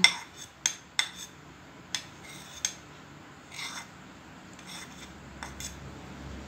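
A spoon clicking and scraping against a stainless steel bowl while a paste is spooned onto sattu flour. There are a few sharp clinks in the first three seconds, then softer scrapes.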